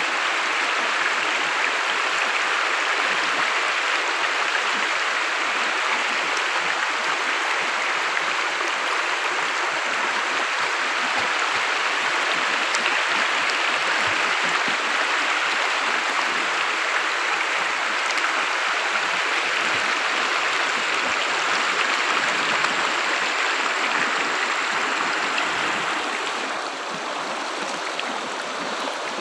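Shallow river running over rocks and through small rapids: a steady rush of water that drops a little in level near the end.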